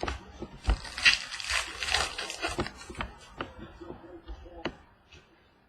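Foil wrapper of a trading-card pack crinkling as it is torn open, followed by scattered light clicks and taps of cards being handled. The crinkling lasts about three seconds.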